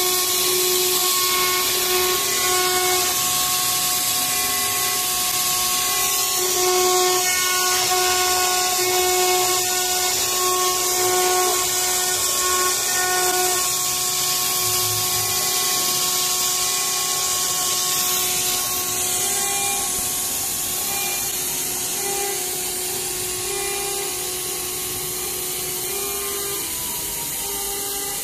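ELE 1212 CNC router's spindle running at high speed while a V-bit engraves letters into an aluminium panel under coolant: a steady whine of a few stacked pitches that pulse in and out as the tool moves, over a constant high hiss.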